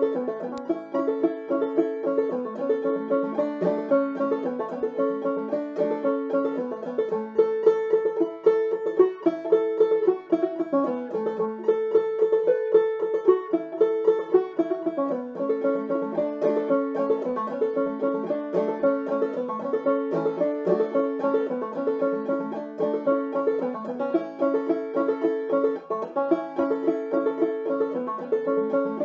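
Open-back banjo played solo in clawhammer style: an old-time tune in the key of A, a steady stream of plucked notes.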